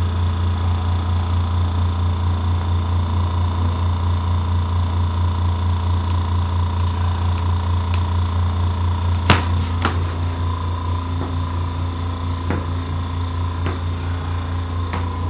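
A steady low machine hum with a slight regular pulsing. One sharp click comes about nine seconds in, with a few fainter clicks after it.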